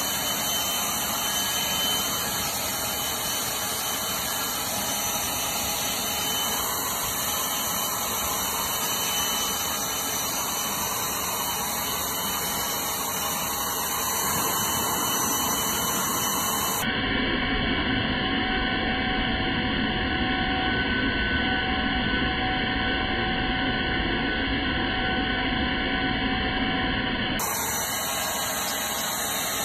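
DeWalt 60V cordless leaf blower running steadily at full blast, a continuous rushing whoosh of air. For about ten seconds past the middle the sound turns duller and deeper.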